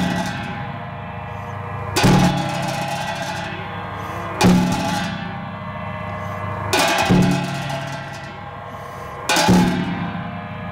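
Tibetan monastic ritual music for a cham dance. A large drum and clashing cymbals strike together four times, about every two and a half seconds, each crash ringing on. Between the strikes, wind instruments hold steady droning tones.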